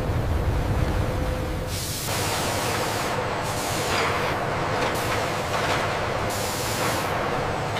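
Factory machinery running. A low rumble gives way about two seconds in to a loud hiss that surges several times, in the manner of compressed air or spraying.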